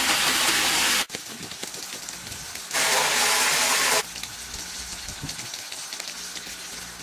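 A loud steady hiss that cuts off abruptly about a second in, then comes back just as abruptly for a little over a second in the middle, with much quieter noise between.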